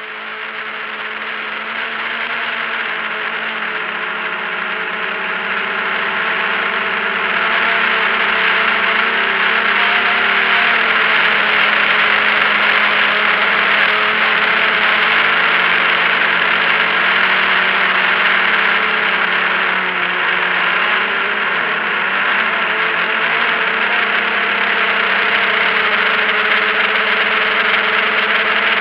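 A camera drone's electric motors and propellers whining steadily, picked up by the camera on board, with a strong airy hiss and a few tones that shift slightly in pitch. It grows louder over the first several seconds as the drone lifts off and climbs, then holds steady.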